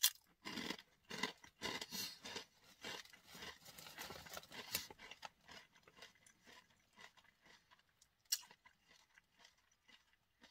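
A person biting into and chewing a crunchy rolled corn tortilla chip (Takis Blue Heat): a sharp bite at the start, then a quick run of crunches that thin out and grow soft after about five seconds, with one more crunch about eight seconds in.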